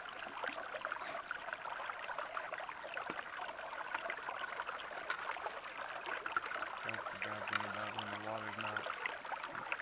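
Stream water rushing through a metal sluice box, with wet gravel and sand tipped into it from a scoop and small scattered ticks of grit.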